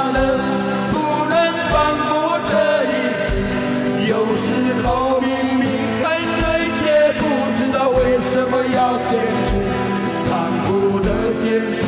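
A live band playing a slow, sentimental Chinese pop ballad: male voices singing over strummed acoustic guitars, with an electronic drum kit keeping a steady beat.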